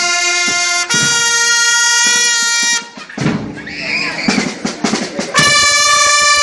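School marching band: brass horns hold long, sustained notes over the drums, break off about three seconds in, leaving the drums playing alone for a couple of seconds, then come back in with another long held note near the end.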